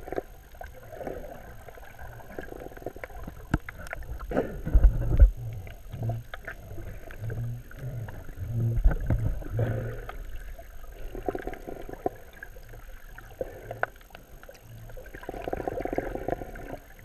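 Muffled swishing and splashing of a swimmer in the water, heard underwater through a GoPro's waterproof housing, swelling every few seconds, with a few sharp knocks and a pulsing low hum about midway.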